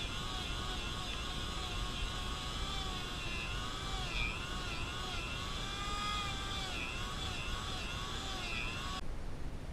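Electric power tool motor running steadily, its whine dipping in pitch and recovering every second or two as it is loaded against the work; the sound changes abruptly near the end.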